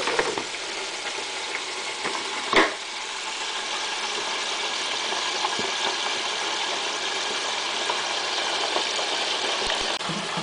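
Chicken pieces deep-frying in hot oil in an electric deep fryer: a steady sizzling hiss, with one sharp knock about two and a half seconds in.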